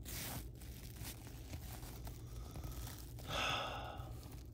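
Cardboard trading cards being slid and flipped through in the hands, a faint papery rustle, with a louder breathy swell of about a second, a little after three seconds in.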